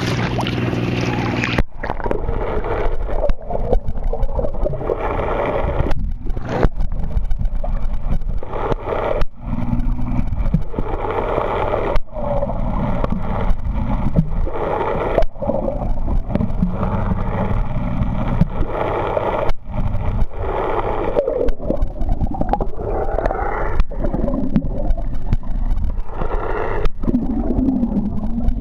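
A boat engine's steady hum, then from about two seconds in the muffled churn and gurgle of water heard through a camera held underwater, with the engine's low drone carrying on beneath it and several brief cut-outs.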